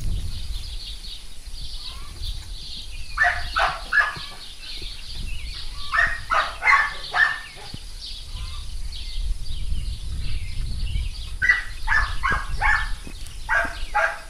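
A dog barking in quick runs of three or four short barks, four runs in all.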